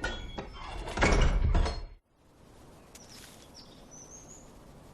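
A loud clattering rush of noise that cuts off abruptly about two seconds in, followed by a quiet outdoor background with a few faint, high bird chirps.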